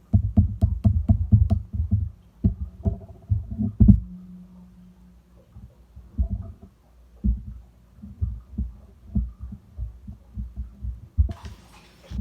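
Bubble-filled slime pressed and squished by hand: a run of soft low squelches, about four a second at first, with small sharp clicks from air pockets popping. The squelches then come more sparsely, and a short crackling rustle comes near the end.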